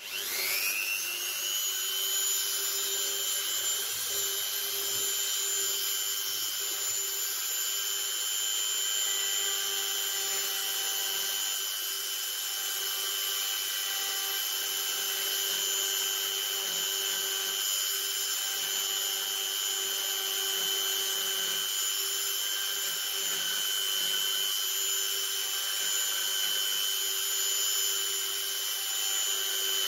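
Handheld rotary tool (Dremel-type multitool) spinning up at the start, then running at a steady high whine as its small bit trims the edges of a softwood carving.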